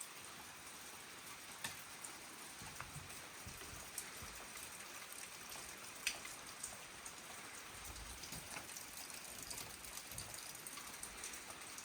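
Light rain falling steadily, with scattered drips ticking here and there.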